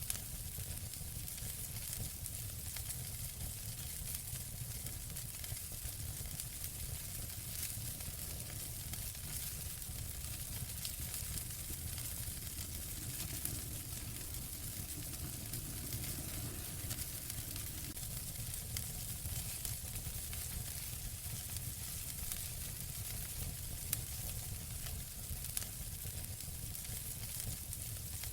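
Wood fire burning in a fireplace: a steady hiss with many small crackles and an occasional sharper pop, over a low rumble.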